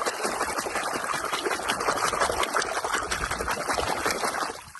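Water running and splashing steadily, stopping near the end.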